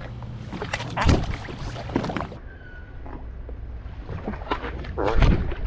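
Water splashing and wing flapping as a brown pelican lunges at the surface close by, loudest about a second in and again about five seconds in, over a low steady hum.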